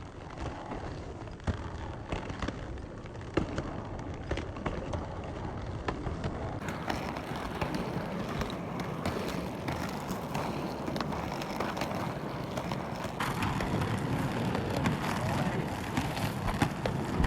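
Roller skate wheels rolling and rattling over a hard surface, a steady rumble with many small clicks that grows a little louder near the end, with voices in the background.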